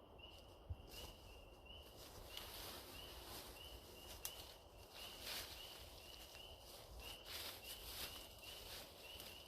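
Faint, evenly repeated short high chirps, about two a second, from a small animal calling steadily in the woods, with a few light rustles or crackles of leaves and twigs.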